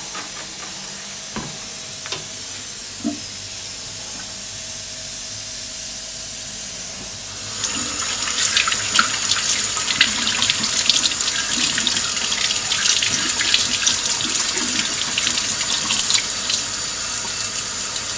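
Kitchen tap running into a sink. About seven seconds in it turns to louder splashing as a computer mouse's scroll wheel is rinsed and rubbed between the fingers under the stream.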